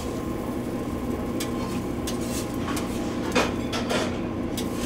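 Metal spatula scraping and clicking on a steel flat-top griddle as machacado filling is scooped onto a tortilla: a few short scrapes and clicks, the loudest a little past three seconds in and again around four seconds, over a steady hum.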